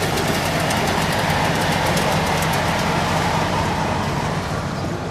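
Model train on a 1:25-scale miniature railway running along its track, with a steady rolling noise and rapid fine wheel clicks over the rail joints. The clicking thins out and the sound eases off near the end.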